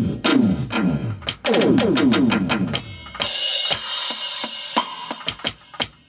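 Electronic drum samples triggered with sticks on a Roland SPD-SX Pro sampling pad. For the first three seconds it plays a quick run of electronic drum hits, each falling in pitch. Then comes a cymbal wash with sharp hits over it.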